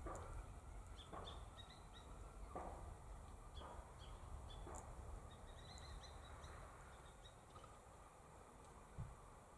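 Faint outdoor quiet with small birds chirping high and short, in a quick run of chirps near the middle, and soft brief rustles about once a second in the first half.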